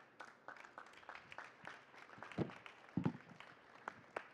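Audience applauding, a spread of irregular hand claps. Two louder low thumps stand out about halfway through.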